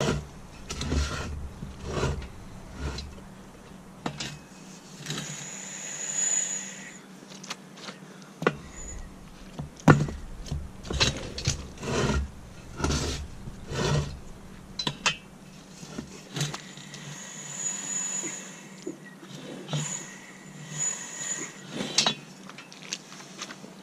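Irregular knocks, clunks and clicks from a car tire and steel wheel being worked by hand on a homemade manual tire changer, the tire stuck fast on a rusted rim, with one sharp strike about ten seconds in.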